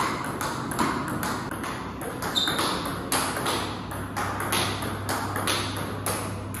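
Table tennis rally: the ball clicking off paddles and table in a quick, even rhythm, about three hits a second.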